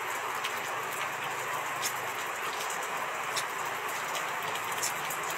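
Steady, even hiss of rain falling, with a few faint sharp ticks about every second and a half.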